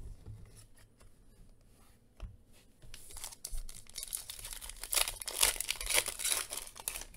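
Foil wrapper of a Panini Phoenix football card pack being torn open by hand and crinkled, starting about three seconds in after a few light handling clicks.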